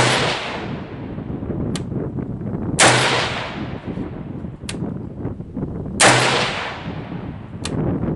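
Three single rifle shots from a Springfield Armory Saint Victor AR-15 in 5.56 mm, fired about three seconds apart in slow aimed fire, each with a ringing tail. A fainter sharp crack follows each shot about a second and a half to two seconds later.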